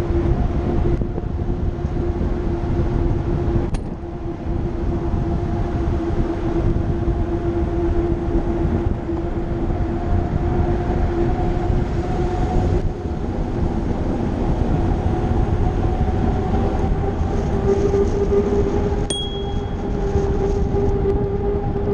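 Wind rumble on the microphone of a moving bicycle, with a steady hum underneath whose pitch rises a little near the end. A bicycle bell dings once near the end.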